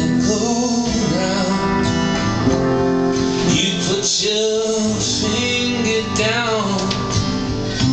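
A cover song played live on two acoustic guitars, strummed and picked, with a man singing phrases over them.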